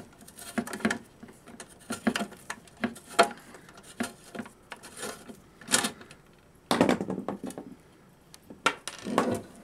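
Screwdriver working a cap out of a hole in a metal wall-pack light housing: irregular metallic clicks and scrapes, with louder scraping about seven seconds in and again near the end.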